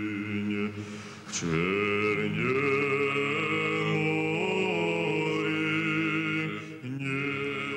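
Unaccompanied choir singing Orthodox liturgical chant in long held notes, with a new phrase beginning about a second in and another near the end.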